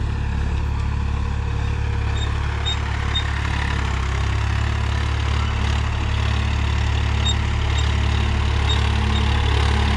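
Swaraj 963 FE tractor's diesel engine running steadily under load, pulling a disc harrow in first gear at just under 1500 RPM.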